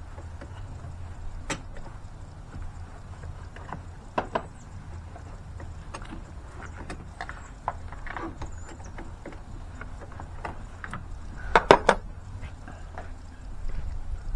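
Scattered clicks and knocks of tools and parts being handled during work on a vehicle, with a quick cluster of louder knocks about four-fifths of the way through, over a steady low rumble.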